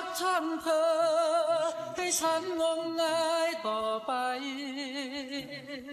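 A song with a single voice singing long held notes with vibrato, stepping down in pitch about two-thirds of the way through.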